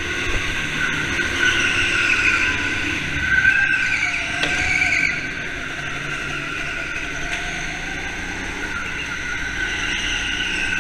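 Go-kart engine running hard, its pitch rising and falling with the throttle, louder for a few seconds in the first half.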